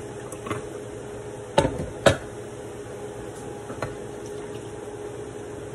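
Two sharp knocks of kitchenware about half a second apart, roughly a second and a half in, with a few fainter clicks, over a steady background hum.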